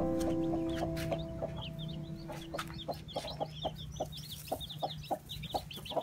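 Newly hatched chicks peeping, many short high cheeps in quick succession, with the mother hen clucking softly in short repeated notes as she broods them.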